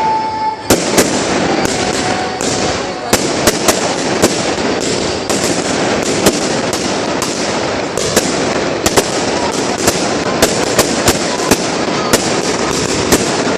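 Fireworks display: a rapid, irregular series of sharp bangs, one to three a second, over a continuous din of further bursts.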